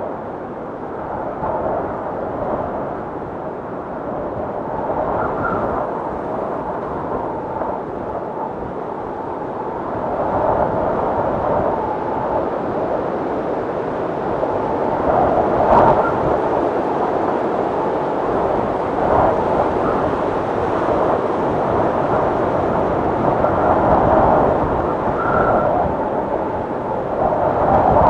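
Blizzard wind blowing in gusts: a steady low rush that swells and eases every few seconds, growing louder about a third of the way in.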